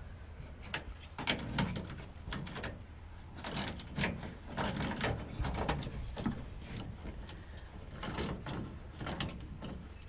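Socket ratchet clicking in short runs as a J-hook nut is loosened on an aluminium truck toolbox, with scattered metal clinks.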